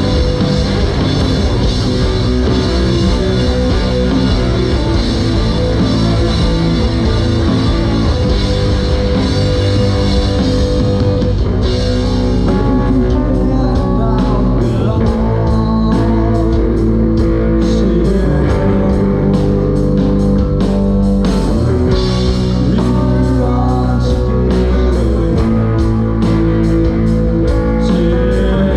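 Rock band playing live and loud: electric guitar, bass and drum kit, with singing. About twelve seconds in, the cymbal wash gives way to sharper, steadily repeating drum hits.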